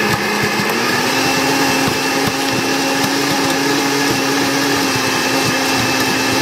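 Countertop blender motor running steadily, grinding toasted spices, garlic, ginger, onion and chili with a little water into a paste; its hum rises slightly in pitch about a second in.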